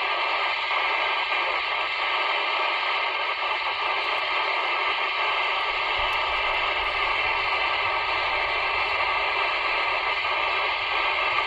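CB radio static: a steady, thin hiss from the set's speaker on the 27 MHz band, with no voice coming through. A faint low rumble joins about halfway through.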